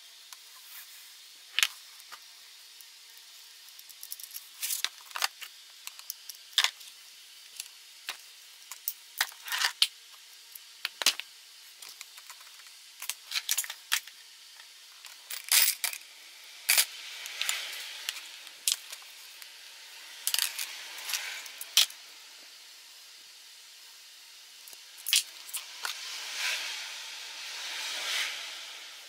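Hand tools clinking and tapping against a motorcycle engine's aluminium crankcase: scattered sharp metallic clicks, with a few longer rough stretches of handling noise after the middle and near the end.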